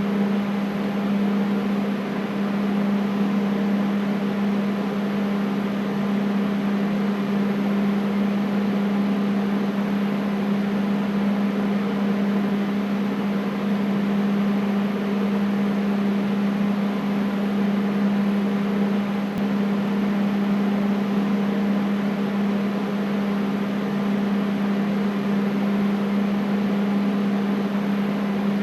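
Air conditioner running steadily: an even whoosh of air over a constant low hum.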